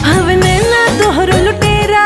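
Background music: a Bhojpuri-style film song with a singer's ornamented vocal line over a steady beat.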